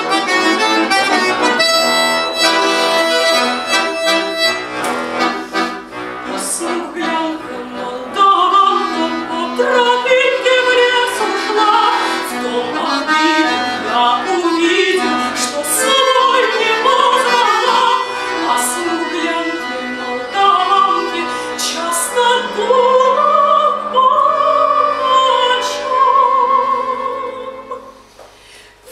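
Bayan (Russian button accordion) playing chords alone for the first several seconds. About eight seconds in, a woman begins singing over it with a strong vibrato, and the music dips in level just before the end.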